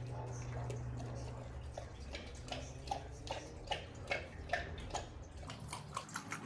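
Great Dane lapping water from a stainless steel bowl: a regular run of laps, about two to three a second, clearest from about two seconds in.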